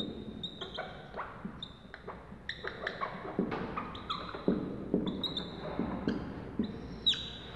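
Dry-erase marker squeaking on a whiteboard as words are written: a run of short, irregular, high-pitched squeaks and strokes.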